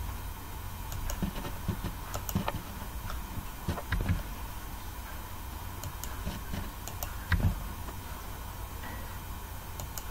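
Scattered single clicks of a computer mouse and keyboard keys at irregular intervals, over a low steady hum.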